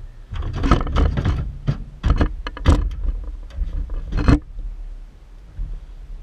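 Boots and knees knocking and scraping on the rusty metal bed of an old pickup truck, a close run of thumps and clatter for about four seconds that then dies down.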